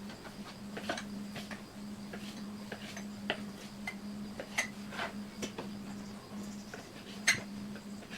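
Scattered light taps and clicks of knife and cutting-board work while a chicken carcass is trimmed, the sharpest about seven seconds in, over a steady low hum.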